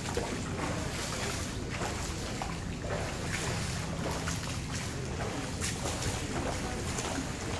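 Splashing from a swimmer's freestyle arm strokes and kicks in a swimming pool, in repeated splashes, over a steady low wind rumble on the microphone.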